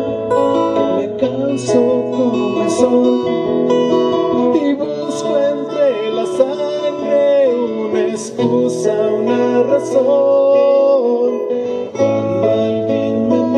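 Acoustic guitar strummed and plucked, with a voice singing a melody over it.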